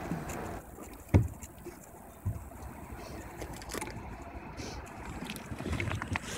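Wind rumbling on a phone's microphone, with handling noise, a sharp knock about a second in and a softer knock a little after two seconds.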